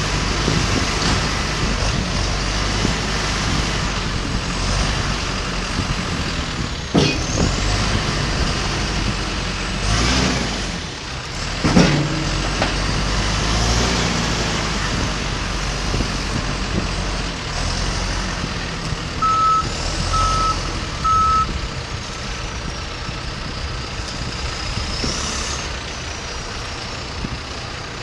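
John Deere 310SJ backhoe loader's diesel engine running steadily, with a high whine that rises and falls several times and a few sharp clunks early on in the first half. About two-thirds in come three short, evenly spaced beeps.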